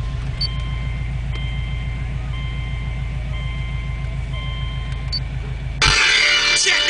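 Car engine idling, heard inside the cabin as a steady low rumble. About six seconds in, loud bass-heavy music cuts in suddenly through the car stereo's ported JL Audio 13W7 subwoofer.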